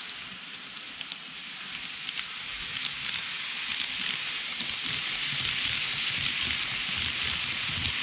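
N-gauge model electric train (KATO E257 series 2000) running on the track: a rushing, crackly rolling noise with scattered sharp clicks from the wheels on the rails, growing louder as the train draws close and passes.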